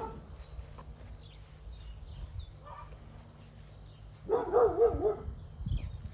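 A small dog barks briefly at the start and gives a loud, wavering snarl lasting about a second about four seconds in, as it bites at a snake. Low scuffling thumps follow near the end.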